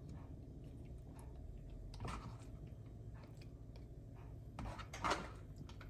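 Faint handling sounds of food preparation: scattered light clicks and taps, the two clearest about two seconds in and about five seconds in.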